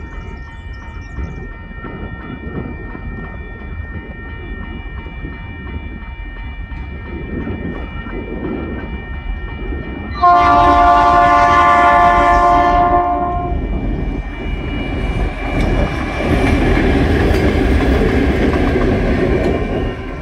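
Two TasRail 2050-class diesel locomotives running light engine approach a level crossing, whose warning bell rings steadily throughout. About ten seconds in the lead locomotive sounds its multi-note horn for about three seconds, then the locomotives pass close by with loud engine noise and wheels clattering over the crossing.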